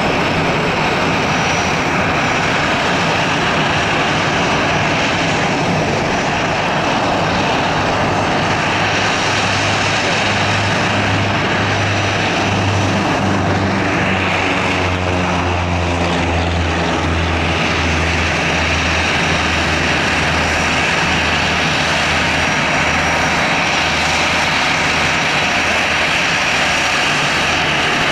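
Airbus A319-111's twin CFM56 turbofan jet engines running at taxi power as the airliner taxis and turns close by: a steady jet whine over a low rumble. A sweeping shift in the tone comes about halfway through.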